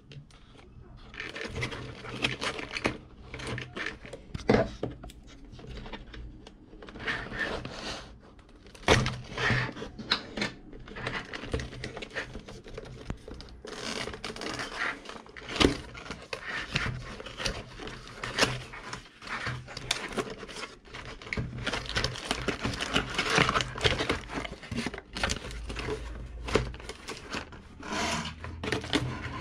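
Cardboard packaging being opened by hand: a taped flap peeled and torn open, then cardboard scraping and crinkling as the inner tray is slid out of the box, in an irregular run of rustles and small clicks.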